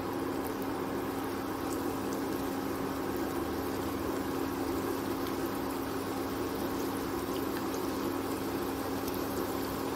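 Gram-flour pakodas frying in hot oil in a kadhai: a steady sizzle and bubbling over a steady low hum.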